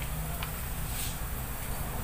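Onion and garlic sizzling steadily in hot oil in a wok, with two light taps as sliced carrots are tipped in from a plastic bowl.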